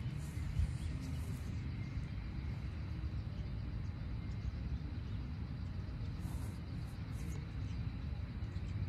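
Steady low outdoor rumble, with a few brief soft rustles near the start and again about six seconds in.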